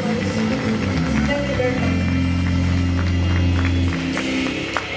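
A live afro-soul band playing the closing bars of a song, with a long held bass note that ends about four seconds in.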